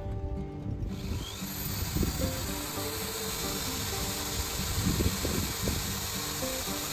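Background music with a melody of steady notes, joined about a second in by a steady hiss and a few dull knocks.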